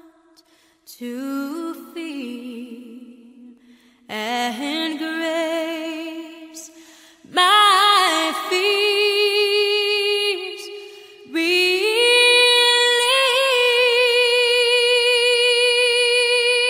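Slow song sung by a woman, a phrase of long held notes with vibrato beginning every few seconds.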